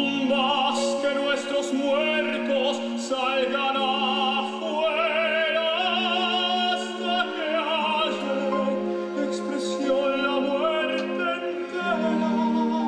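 Classical music: an operatic voice singing long notes with wide vibrato over sustained orchestral chords, entering loudly right at the start.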